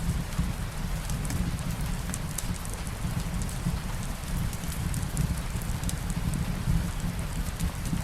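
Steady rain mixed with a crackling fireplace: an even hiss with a deep steady rumble underneath and scattered sharp crackles and ticks throughout.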